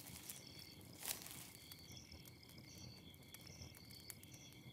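Faint night-time woodland ambience of crickets chirping steadily, with a brief soft noise about a second in.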